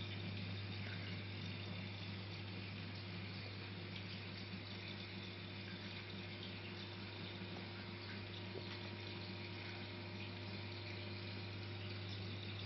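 Water circulation of a 210-litre saltwater reef aquarium running: a steady rush and trickle of moving water over a constant low hum.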